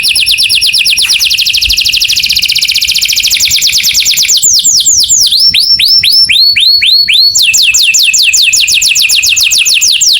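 A canary singing loudly: a fast trill of rapidly repeated high notes, breaking about midway into a slower run of downward-sweeping notes, then a fast trill again, with sweeping notes near the end.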